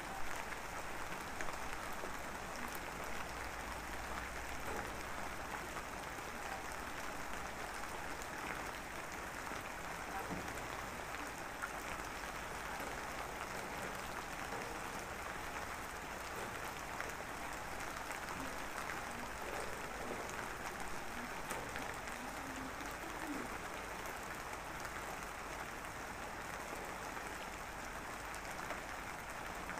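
Steady, even rain-like hiss with fine crackle, a calm background noise bed.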